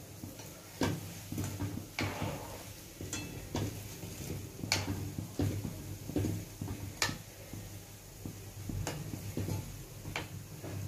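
Metal slotted spoon knocking and scraping against an iron kadai as fritters are turned in hot oil, about ten irregular clicks spread over several seconds, with the oil sizzling steadily underneath.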